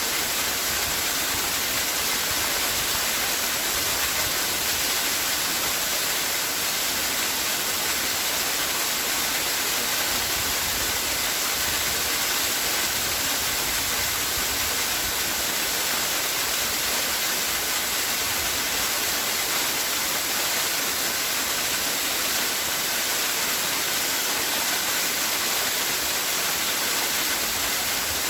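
Waterfall: water falling and splashing in a steady, unbroken rush, hissy and bright.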